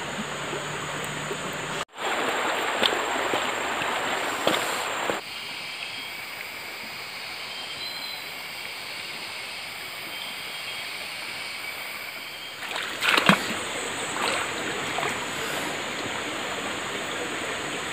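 Small forest stream running steadily, with a few short splashes about two-thirds of the way in. The water sound changes level abruptly twice early on.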